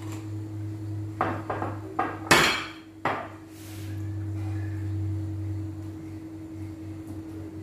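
Utensils knocking and clinking against a glass mixing bowl of pancake batter: four sharp knocks in the first three seconds, the loudest just after two seconds, then soft whisking. A steady low hum runs underneath.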